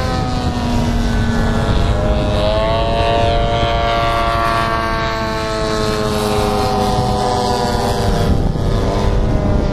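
Several radio-controlled aerobatic model airplanes flying at once, their engines and propellers droning at several pitches together, the pitches rising and falling as the throttles change.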